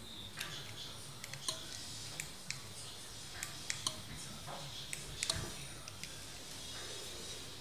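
Scattered light clicks and ticks, a dozen or so at uneven intervals, while a glass touch-panel light switch is being operated.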